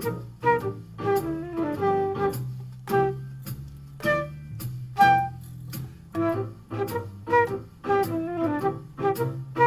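Concert flute improvising a jazz line over a recorded jazz piano trio backing, with a steady bass line under short piano and drum accents.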